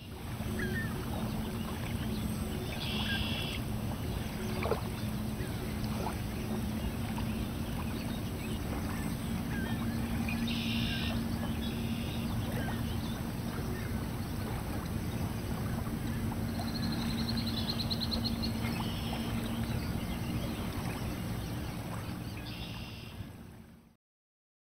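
A steady low drone and rumble under scattered short, raspy, high-pitched bird calls, with one quick trill about two-thirds of the way through.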